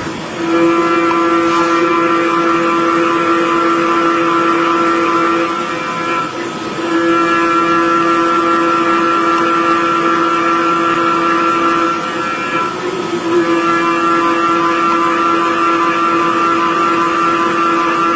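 CNC lathe boring the inside of a spinning cylindrical part: a loud, steady machine whine, with two short dips in level partway through.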